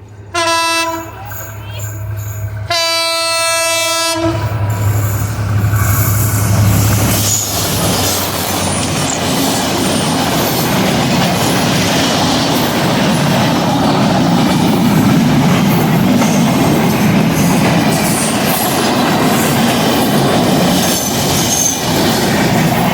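Diesel train sounding its horn twice, a short blast and then a longer one, then passing close by: a low engine drone, followed by a long, loud rumble and clatter of wheels on the rails.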